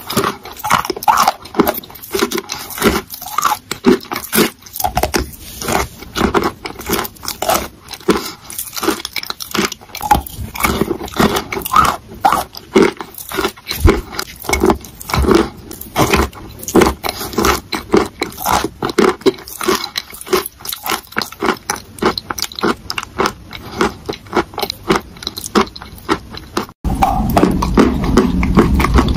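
Close-miked eating of wet clay paste: rapid, irregular, sticky clicks and smacks of the mouth and lips as it is chewed. Near the end it cuts to chewing a white chalk paste, over a steadier background noise.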